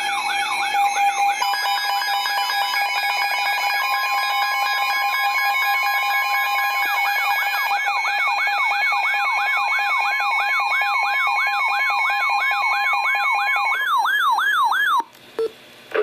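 NOAA weather radio alert alarm sounding as a Special Marine Warning is received: several electronic siren wails sweep rapidly up and down, about three a second, over steady alert tones. The alarm cuts off about a second before the end.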